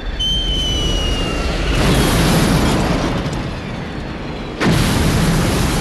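Explosions of a B-52 bomber hit in flight, as film sound effects: a falling whistle near the start, then a rumbling blast swelling about two seconds in, and a second, sharper blast that starts suddenly near the end.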